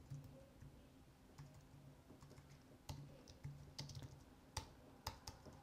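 Faint computer keyboard typing: a few separate keystrokes, most of them in the second half.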